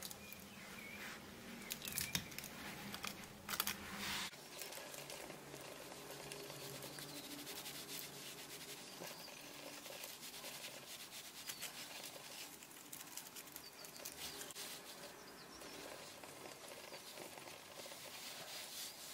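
Thin paper rustling and crinkling as fingers in rubber finger cots handle and fold it, with a few sharper crackles in the first few seconds, then softer rustling and light rubbing.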